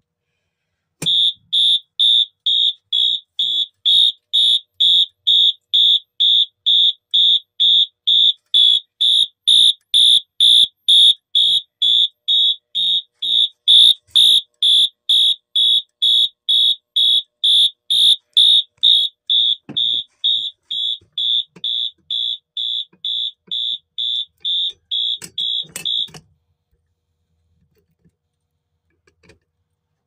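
Fire alarm set off from a manual pull station, sounding a high-pitched electronic alarm tone that pulses evenly about twice a second, then cuts off suddenly about 26 seconds in.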